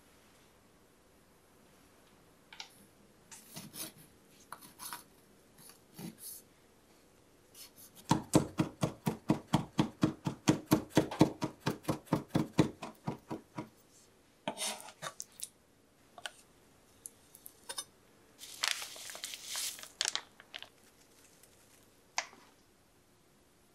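Kitchen knife chopping rapidly on a wooden cutting board, mincing a pickled plum (umeboshi) to a paste: a run of about five quick, even strokes a second lasting some five seconds in the middle. Before it, a few light clicks of handling; after it, short rustling and scraping as the minced plum and other toppings are moved.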